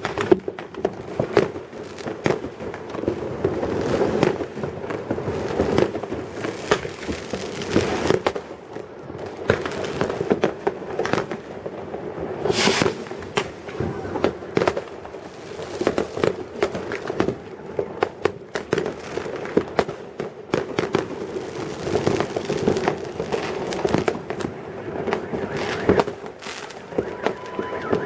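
New Year fireworks going off all around: a continuous rattle of pops, bangs and crackling from many salutes at once, with one louder, closer burst about halfway through.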